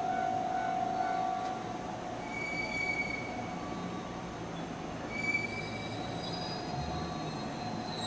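An electric commuter train moving slowly toward the platform, its wheels giving several short high-pitched squeals, over the ringing of a Japanese level crossing alarm that fades after the first second or so.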